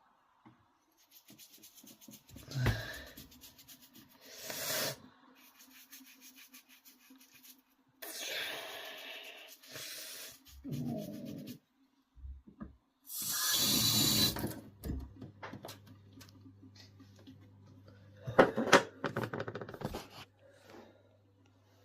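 Toothbrush bristles scrubbing wet skin in short scratchy bouts, with a few knocks and handling rubs, the loudest about two thirds of the way in.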